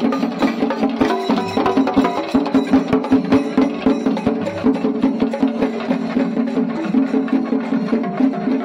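A group of chenda drums beaten with sticks in a fast, dense rhythm of strokes.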